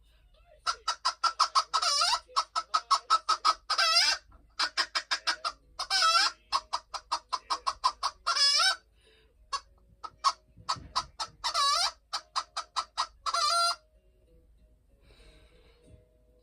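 Hen clucking in fast runs of short clucks, broken every couple of seconds by a longer drawn-out squawk; it pauses briefly about ten seconds in and stops a couple of seconds before the end.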